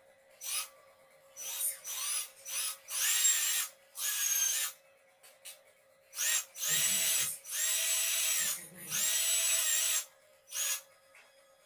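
Ingco 18V cordless drill, freshly fitted with a replacement RS550 DC motor, test-run in a series of trigger pulls. First come a few short blips, then several runs of about a second each. Each time the motor's whine rises as it spins up, holds steady, and drops away when the trigger is released.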